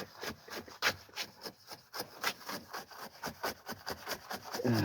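Rapid scraping strokes, about three to four a second, of a hand tool working freshly poured concrete, with a short grunt-like vocal sound near the end.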